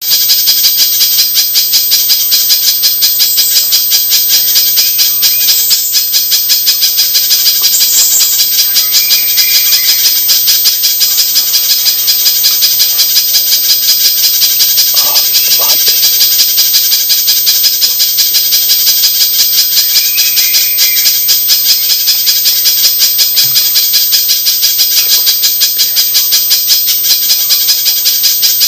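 Spiderhunter (pijantung) calling in a fast, even run of sharp, high chips repeated many times a second, played as a bird-lure recording.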